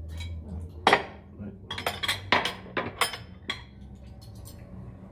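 Metal cutlery clinking and knocking against plates and dishes during a meal: one sharp clatter about a second in, then a run of quicker clinks over the next couple of seconds, over a low steady room hum.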